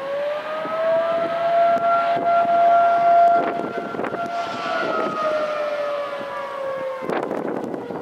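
Federal Signal 2T22 dual-tone outdoor warning siren sounding in attack mode: its chord rises over the first second or so, holds steady, then falls away from about halfway through. Wind buffets the microphone, with a burst of noise about seven seconds in.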